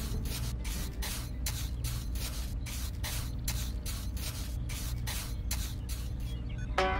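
Small hand trowel scraping and smoothing wet cement in quick, even strokes, roughly three a second. Plucked-string music comes in just before the end.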